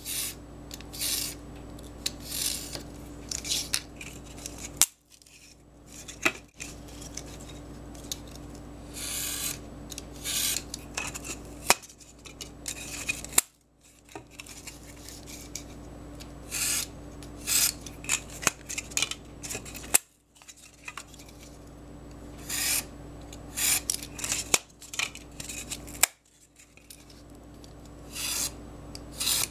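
A utility knife blade scoring thick white board, drawn in repeated short scratchy strokes with a few sharp clicks in between.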